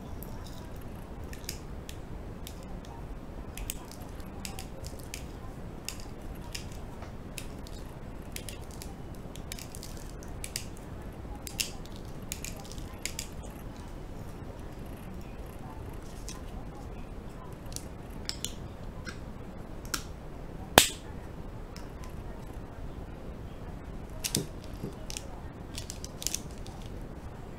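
Scattered light clicks and taps from hands handling a small glass seasoning jar over a breakfast plate, with one sharper click about two-thirds of the way through, over a steady low room hum.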